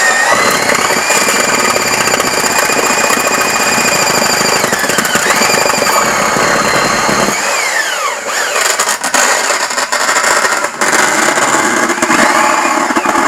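Portaband portable band saw running and cutting through a steel-belted car tire. Its high whine sags in pitch and recovers a couple of times as the blade loads up in the rubber and steel, with a rougher, ticking stretch later, and the saw stops right at the end. The cut is not smooth.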